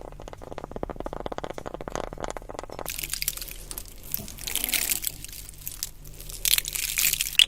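Close-miked ASMR trigger sounds: a quick run of small clicks, turning about three seconds in to a brighter crackling and crinkling.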